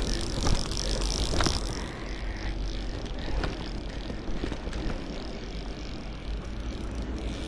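Wind rumbling on a body-worn action camera's microphone over the rush of the river, with a few sharp knocks from the rod and line being handled. A high hiss sits over it for the first second and a half.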